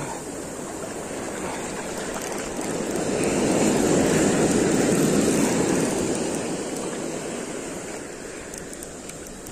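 Ocean surf breaking and washing up a beach, swelling to its loudest about four seconds in and then fading away.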